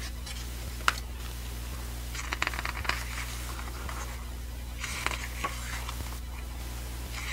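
Paper pages of a CD album's photo book being turned by hand, with a few short bursts of rustling and page flaps and a sharp tap about a second in. A steady low hum runs underneath.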